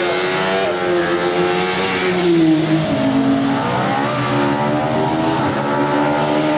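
Sports saloon race car engines at high revs, climbing through the gears with a drop in pitch about halfway, then rising again.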